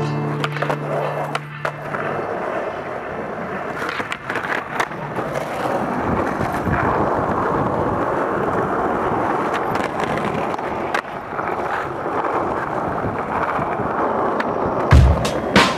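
Skateboard wheels rolling over stone paving slabs, a steady rough rolling noise, with a few sharp clacks of the board. A low music chord fades out at the start, and a heavy music beat comes in near the end.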